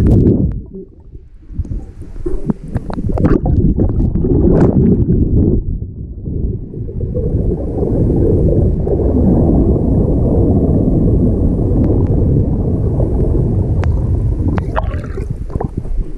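Muffled rumbling and rushing of water heard from inside a waterproof camera housing as it moves underwater, with scattered clicks and knocks against the housing in the first few seconds. The rumble becomes steadier after about seven seconds, and a few more clicks come near the end.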